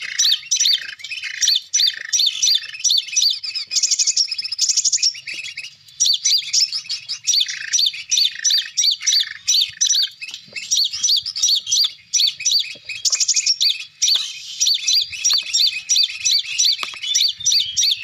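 Lure bird calls, a recording of sogon birds played from an MP3 player: rapid, high-pitched chirps repeating several times a second without a break.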